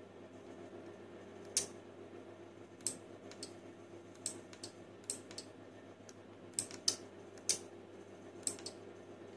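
Sharp clicks of a two-channel remote-control relay board switching on and off as buttons on its keyfob remote are pressed, about a dozen clicks at irregular intervals, over a low steady hum.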